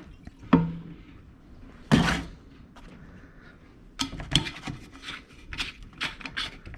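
A few sharp knocks and clatters as a chainsaw and its fuel and oil caps are handled, with a short scraping rustle about two seconds in and a run of quicker knocks near the end.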